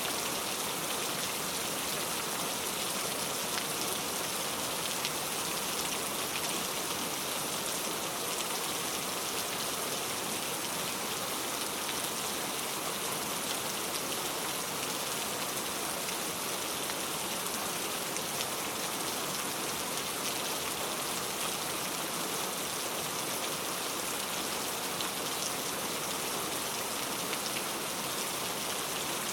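Steady rainfall, with faint individual drops ticking through an even hiss.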